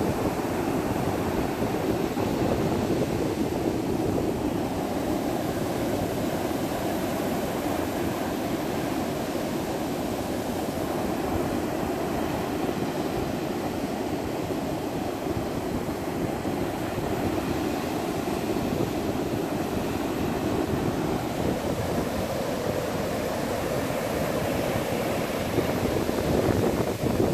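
Ocean surf washing onto a beach, a steady rush of noise with no distinct breaks.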